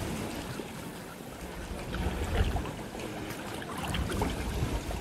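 Shallow sea water lapping, with scattered small splashes and low rumbles of wind on the microphone about two seconds in and again near the end.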